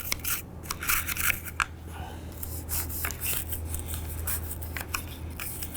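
A solvent-wet cleaning brush scrubbing a stainless steel rifle bolt by hand: a run of quick, scratchy bristle strokes, sparser at first and then denser and steadier from about two seconds in.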